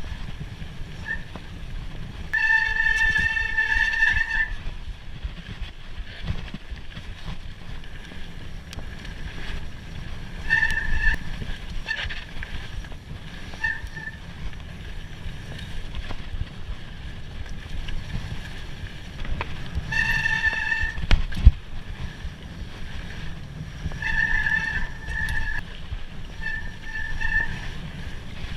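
Mountain bike riding a trail: a steady rumble of tyres and wind on the ride-mounted microphone, broken several times by short high-pitched whines from the bike lasting a second or two each, and one sharp knock about two-thirds of the way through.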